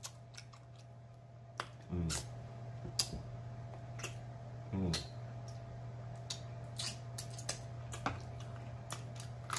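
Close-miked wet eating sounds from a person eating roasted turkey wings: scattered mouth clicks and smacks from chewing and licking his fingers. Two short hummed "mm"s come about two and five seconds in.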